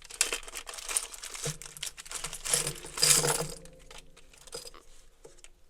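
Small plastic bag crinkling and rustling as a watch is handled out of it, with light clinks, mostly over the first three seconds before dying away.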